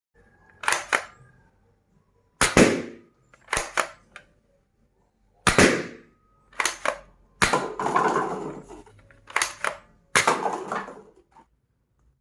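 Toy guns firing: a series of sharp shots spaced about a second apart, several in quick pairs, a few trailing off with a longer ring.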